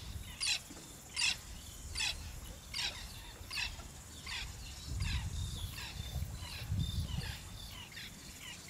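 A small animal's short chirping call, repeated evenly a little more than once a second and fading out about five seconds in. A low rumble, like wind on the microphone, rises in the middle.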